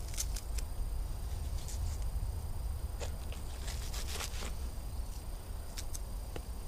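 Pine-wood campfire crackling, with scattered sharp pops and ticks, a cluster of them about halfway through, over a steady low rumble.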